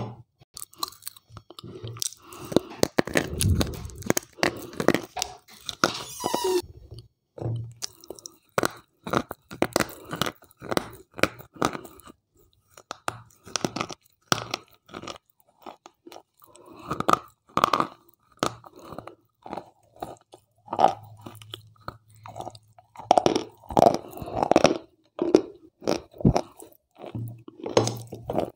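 Slate pencil being bitten and chewed right at a lavalier microphone held to the mouth. A dense run of crunches fills the first six seconds or so; after a short pause come separate crunching bites and chews.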